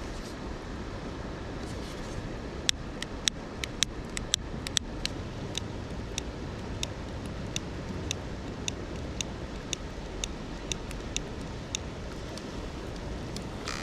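Wood campfire crackling with sharp, irregular pops, over a steady rush of river water.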